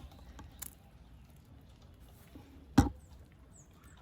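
A few sharp knocks, the loudest about three quarters of the way in, as leftovers are knocked out of a container for the hens, with a few faint high chirps just after.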